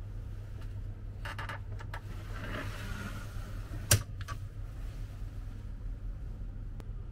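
Fabric roller blind over a capsule pod's entrance being pulled down: a few rattling clicks, a soft rolling rustle, then a sharp click about four seconds in as the blind reaches the bottom. A steady low hum runs underneath.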